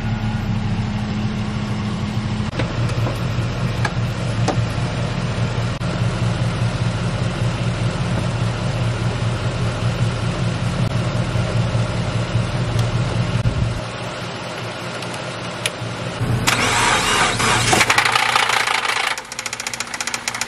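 Car engine running through a jump start: a steady idle, then a louder burst of engine noise about three quarters of the way in, followed by fast, even ticking. It is the 2013 Subaru Impreza's FB20 flat-four knocking badly, a sign that the engine is done.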